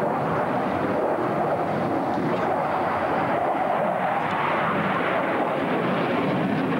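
Mikoyan MiG-29 fighter's twin Klimov RD-33 turbofan engines heard from the ground during an aerobatic display: a steady, rushing jet noise that swells slightly in the middle as the jet banks overhead.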